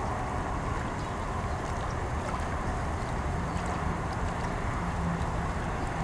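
Steady outdoor background rumble of distant traffic or machinery, with a steady low engine-like hum that comes in about halfway through and grows near the end.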